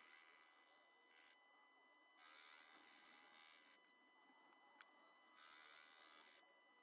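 Near silence: only a faint steady high tone, with faint hiss coming in twice.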